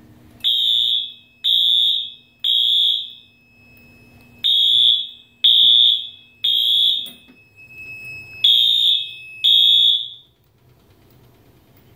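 Wheelock MT fire alarm horn, set to continuous at low volume, sounding the temporal code-3 evacuation pattern driven by the fire alarm panel. It gives three high-pitched blasts, a pause, three more, a pause, then two more before it stops.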